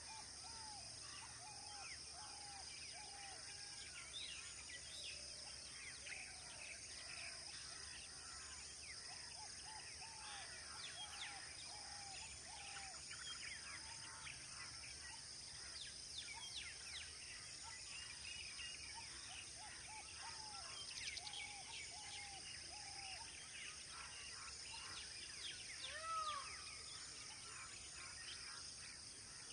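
Evening birdsong and a steady high insect drone. Many chirps and short whistled notes overlap, and one call repeats in runs of four or five short arched notes. A single louder call stands out near the end.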